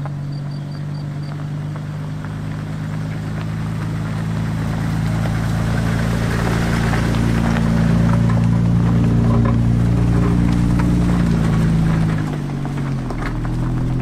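Toyota Land Cruiser FZJ80's 4.5-litre straight-six engine running at low speed as the truck crawls past close by on a dirt track. It grows louder toward the middle and falls away about twelve seconds in.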